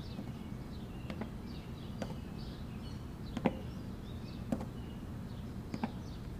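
Quiet background ambience with faint bird chirps and a low hum, broken by about five sharp taps spaced roughly a second apart, the loudest about three and a half seconds in.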